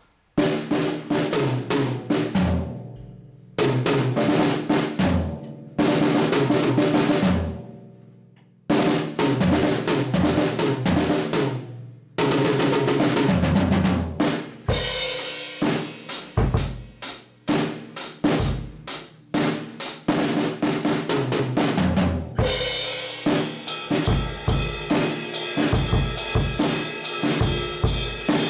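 Rebuilt Millennium acoustic drum kit being played. It opens with several tom and snare rolls with kick hits, each left ringing out into a short pause. From about halfway it settles into a steady beat on kick and snare, with Paiste 101 cymbals coming in, and the cymbals wash more thickly near the end.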